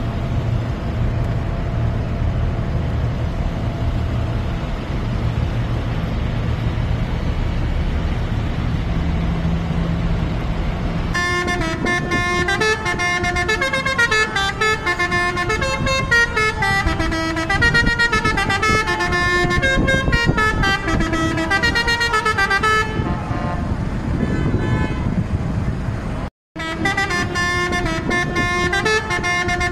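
Tractor and truck engines running, then from about eleven seconds in, vehicle horns sounding loudly in notes that step up and down. The sound cuts out for a moment near the end and the horns resume.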